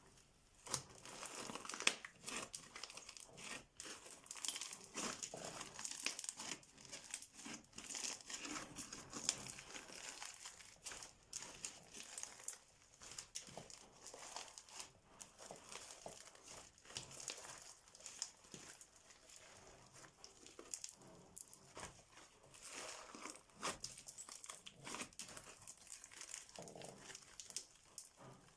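Crunchy, sticky slime being squeezed and stretched by hand, making a dense, irregular run of crackles, small pops and sticky tearing sounds.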